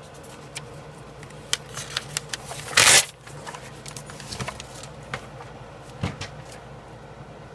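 Handling noise from a paper notebook being moved about on a desk: scattered clicks and taps, with one brief loud rustle about three seconds in.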